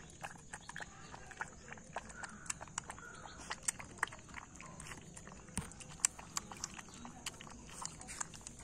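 Puppy lapping and eating soft food from a plastic bowl: a fast, irregular run of small wet licks and smacks.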